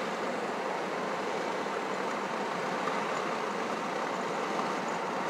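Steady road noise heard from inside the cabin of a moving car or pickup: tyres on asphalt and the running engine, an even hiss with no change in pace.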